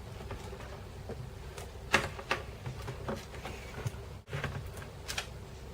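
Hands handling a laptop LCD panel while unplugging the ribbon cable from the back of the screen: a few short soft clicks and scrapes, over a steady low hum.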